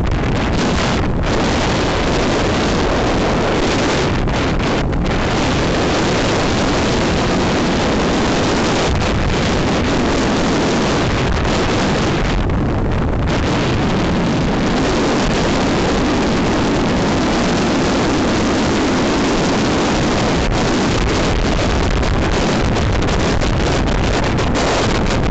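Steady rush of wind and road noise from a car travelling at highway speed, with wind buffeting the microphone.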